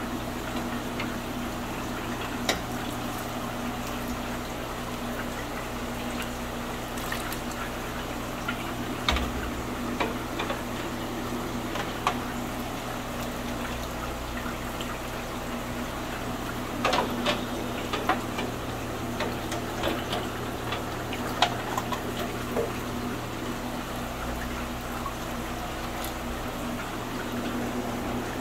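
Water splashing and sloshing as a fish net is worked through an aquarium and fish are tipped into buckets, with scattered sharp knocks and splashes. A steady low hum runs underneath.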